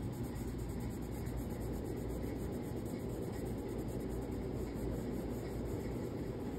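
Fingertips rubbing chalk pastel into paper to blend the shading, a steady rubbing.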